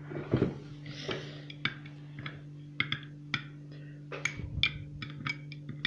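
Metal teaspoon clinking irregularly against the side of a glass mug while stirring coffee with mayonnaise in it, a couple of clinks a second. A steady low hum runs underneath.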